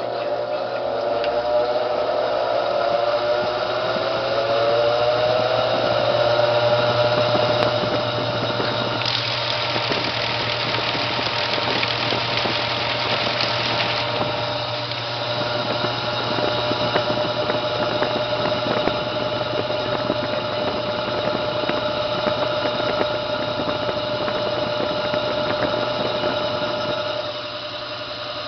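Brastemp Clean washing machine spinning its drum in an intermediate spin with an unbalanced load: the motor's whine rises in pitch over the first several seconds, then holds steady over a constant hum. A hissing rush joins it for about five seconds near the middle.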